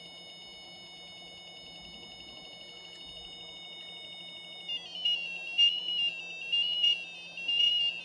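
Homemade Arduino Uno synthesiser playing a steady high electronic tone through a small buzzer. A little over halfway through, the tone starts wavering up and down in pitch and pulsing louder about twice a second, as the pitch and low-frequency-oscillator (LFO) potentiometers are turned.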